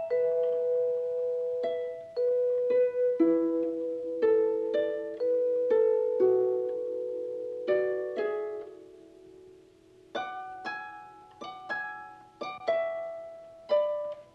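Soundtrack music: a slow melody of plucked string notes, each struck sharply and left to ring out, with a quieter stretch just before the middle and quicker notes toward the end.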